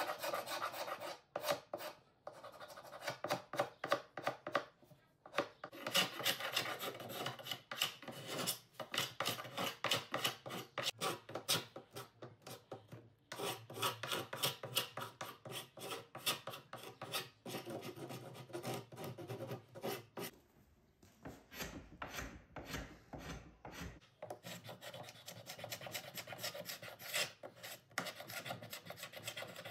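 Carbide scraper dragging over painted wood, peeling paint and old varnish off the veneer in short repeated strokes, a few per second. A low rumble briefly joins in about two-thirds of the way through.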